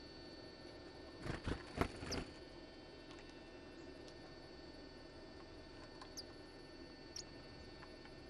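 Great tits and a blue tit at a window-ledge fat-ball feeder: a quick run of four or five sharp taps about a second and a half in, then a few short, thin, high call notes, over a steady electrical hum.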